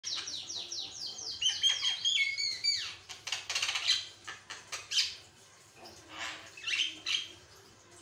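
Javan myna (jalak kebo) singing a varied song: a quick run of falling whistles, then harsher rattling notes and a few scattered calls.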